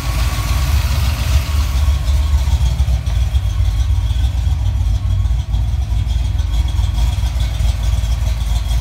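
1988 Ford Mustang GT's 5.0-litre (302) small-block Ford V8, running on a Holley Terminator X fuel-injection kit, idling with a steady low rumble.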